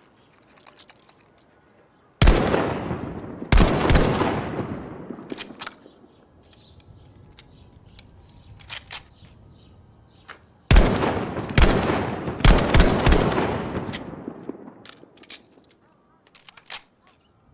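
Remington Model 8 semi-automatic rifle firing two strings of shots, three fairly quick shots and then about five, each shot followed by a long echoing tail. Faint clicks come between the two strings.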